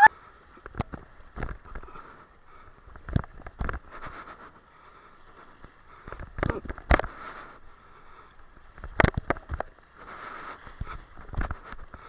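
A splash as a jumper hits the sea at the start, then seawater sloshing and gurgling among concrete breakwater tetrapods, with scattered short knocks and bumps.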